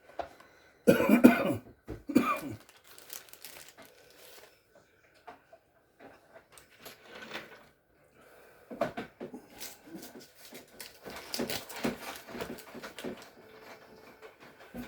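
A person coughing twice, loudly, about a second in, followed by scattered light clicks and rustling as parts are handled.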